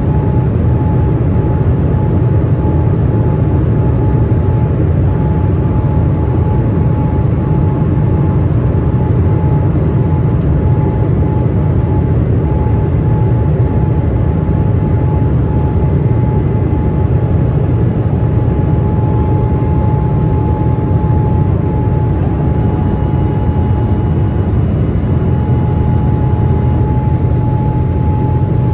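Steady, loud airliner cabin noise during the approach: a constant low rumble of engines and airflow, with a thin steady hum running through it.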